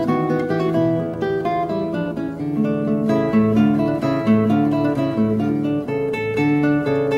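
Instrumental background music: an acoustic guitar plucking a steady run of notes.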